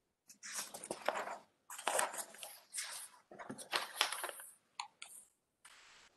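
Irregular bursts of close rustling, crackling noise for about five seconds, then a short faint hiss near the end.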